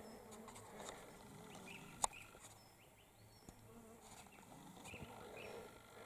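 Quiet bush ambience with a faint insect buzz, a few faint short chirps and one sharp click about two seconds in.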